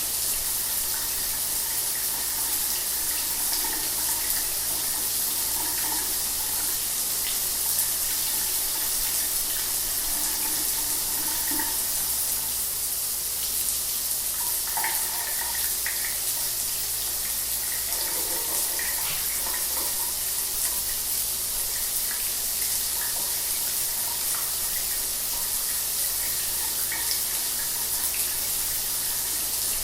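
Shower water running steadily: a continuous hiss of spray with small splashes scattered through it and a faint low hum underneath.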